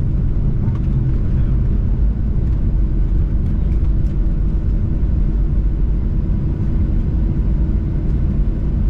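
Steady low rumble inside the cabin of a Boeing 737-800 slowing on the runway after touchdown: its CFM56 jet engines running and the landing gear rolling on the runway surface.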